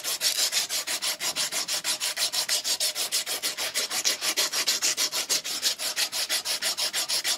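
Strip of emery cloth pulled back and forth, shoe-shine style, around a small steel collar clamped in a vise: fast, even rasping strokes, several a second. The part is being smoothed so it will not catch and turns freely.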